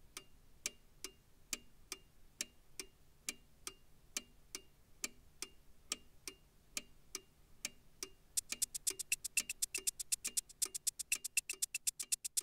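Clock ticking, evenly, about two ticks a second; about eight seconds in the ticking doubles to roughly five a second and grows louder.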